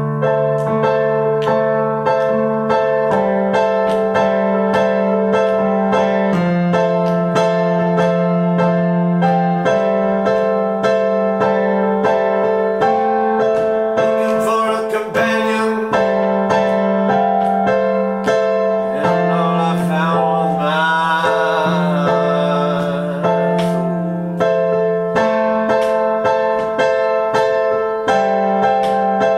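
Digital piano played in slow, held chords, the bass note changing every two to three seconds. Near the middle a wavering, wordless voice rises over the chords for a few seconds.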